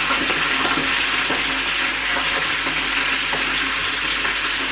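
Chicken nuggets frying, a steady sizzle.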